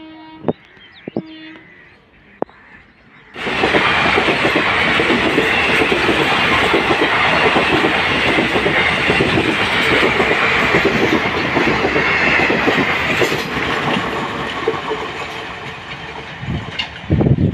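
Train passing close by on the line: a loud, steady rattle and clatter of wheels on the rails that starts suddenly a few seconds in and slowly fades toward the end. A few sharp clicks come before it.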